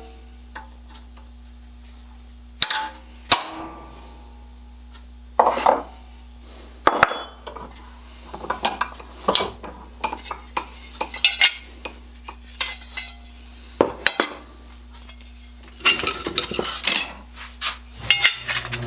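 Metal tools and parts clinking and knocking as they are handled, a few scattered knocks at first and then a busier run of clinks, over a steady low hum.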